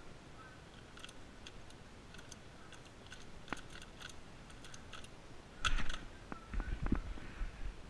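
Moyu magnetic skewb turned rapidly through a speed solve, a string of light clicks as its pieces turn. About five and a half seconds in, a louder slap as the timer is stopped on the laptop keyboard, then a few low thumps.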